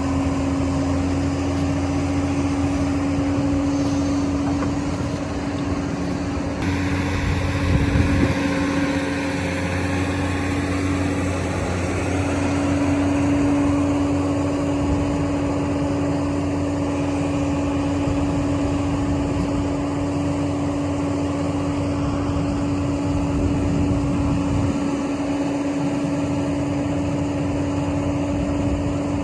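Hydraulic excavator's diesel engine running steadily under work, with a constant hum over a low rumble and a brief louder stretch about eight seconds in.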